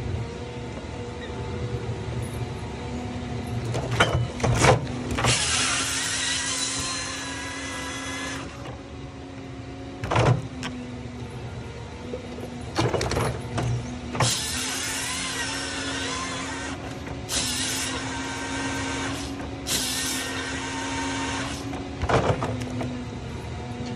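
A machine running with a steady hum. Four times it lets out a hiss lasting two to three seconds, with faint shifting whistles in it, and there are a few sharp knocks in between.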